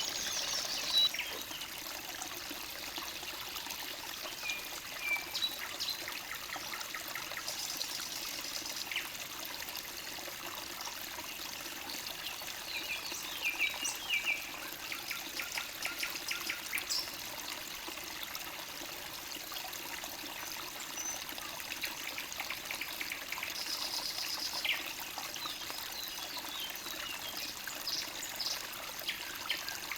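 Forest stream trickling steadily, with songbirds singing on and off over it in short chirps and quick series of notes.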